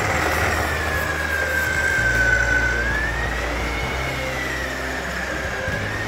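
Electric motor of a Sharper Image Burnout Drifter RC toy car whining. Its pitch sags in the middle and rises again near the end as the car slows and speeds up.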